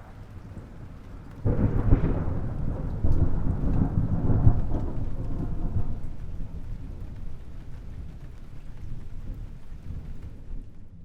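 Thunder: a faint rumble breaks into a loud crack about a second and a half in, swells again twice, then rolls away in a long, fading low rumble.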